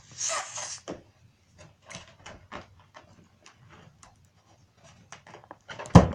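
Irregular light taps and scuffles on a hard floor, with a brief rustling burst at the start and one loud knock near the end.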